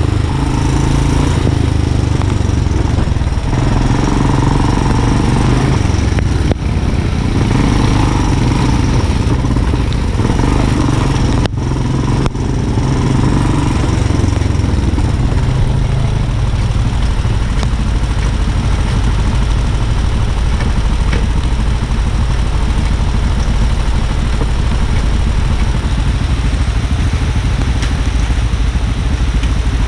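ATV engine running under way on a dirt trail, its note rising and falling with the throttle over the first half and then holding steadier, with a constant low rumble.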